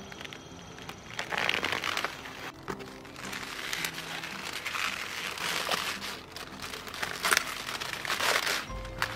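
Several bursts of leafy rustling and crunching as cabbage leaves are handled and cut with scissors, over soft background music.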